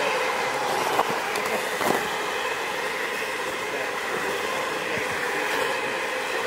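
EELS snake robot driving over snow on its rotating screw segments: the drive motors give a steady mechanical hum with several steady tones. Two short knocks come about one and two seconds in.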